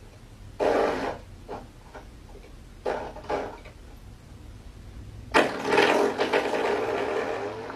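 A metal coil-spring door stopper flicked by a cat's paw, twanging with a buzzing boing several times. The longest comes about five and a half seconds in and slowly dies away.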